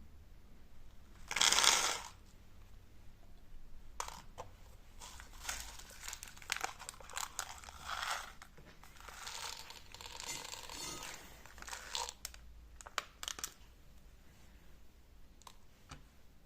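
Rustling and crinkling handling noises with scattered small clicks, and one louder rush of noise about a second and a half in.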